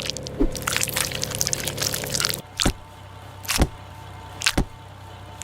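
Cartoon sound effects: a stretch of rapid, crackling clicks over a low hum, then sharp single snaps about a second apart.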